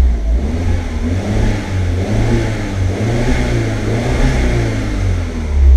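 Audi TT Mk1's freshly rebuilt engine revved gently, its pitch rising over the first couple of seconds and settling back toward idle near the end.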